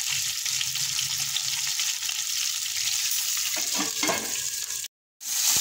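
Halved green chillies sizzling in hot oil in a metal kadai, a steady high hiss. About four seconds in, a metal lid is set on the pan with a brief scrape, and the sound cuts out for a moment near the end.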